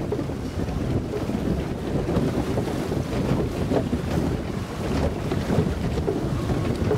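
Wind buffeting the microphone with water rushing along the flume channel as a log flume boat travels through it.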